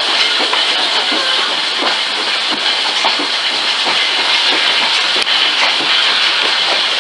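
A moving train hauled by the Flying Scotsman steam locomotive, heard from a carriage: a loud, steady hiss with irregular clicks and knocks from the wheels on the track.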